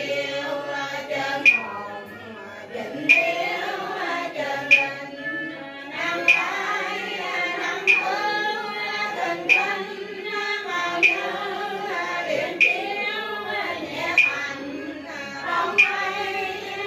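Cao Đài liturgical chanting: several voices singing a slow prayer chant, kept in time by a sharp struck beat about every one and a half seconds.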